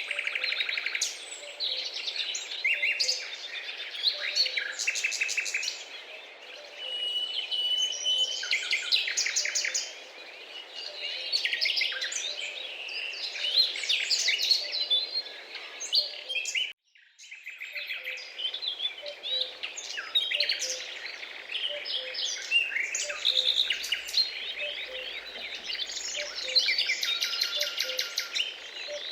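A chorus of many wild birds, with dense overlapping chirps, whistles and rapid trills, and a soft low note repeating underneath. The sound cuts out for a moment just past halfway, then resumes.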